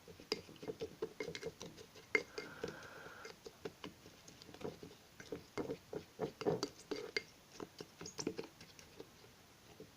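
A fledgling budgerigar pecking and scrabbling about: a run of quick, irregular light taps and scratches that thin out near the end.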